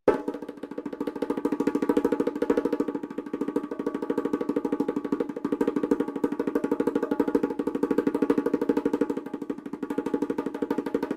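A fast, even roll on a pitched percussion instrument, its strokes running together in a rapid steady stream for about eleven seconds. It starts abruptly and eases off only near the end.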